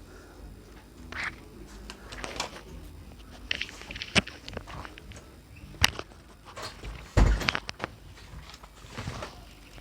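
Scattered clicks, knocks and rustling from objects being handled and people moving about, with one heavier thump about seven seconds in.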